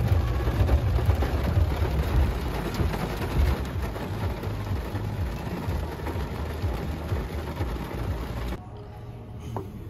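Loud, continuous rushing noise with a heavy low rumble that cuts off abruptly near the end, leaving quieter background.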